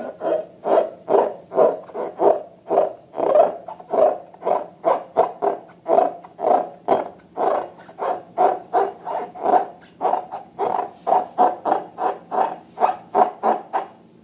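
Slime being squeezed and kneaded by hand, a steady run of wet squelches about two or three a second.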